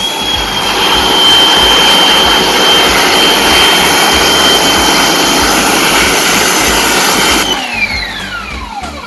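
Kärcher pressure washer spraying, its motor holding a steady high whine over the hiss of the water jet. About seven and a half seconds in the trigger is released and the whine falls away as the motor spins down.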